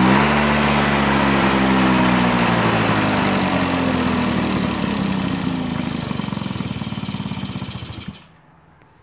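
Yamaha Passola SA50's 49 cc two-stroke engine running, its revs falling away steadily until it stalls about eight seconds in. It won't idle, which the owner puts down to dirt still in one of the carburettor jets.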